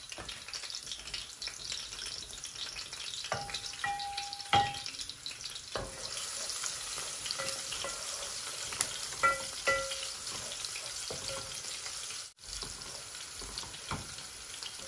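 Sliced garlic sizzling in hot oil in stainless steel pots, stirred with a wooden spoon that knocks against the pot sides several times, each knock leaving a short ring from the steel.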